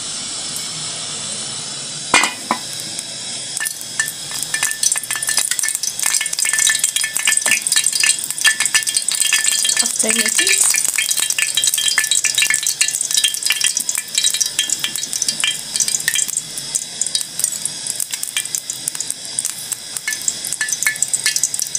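Cooking oil heating in a frying pan, crackling and sizzling more and more after the first few seconds as it comes up to frying temperature. There is a single sharp knock about two seconds in.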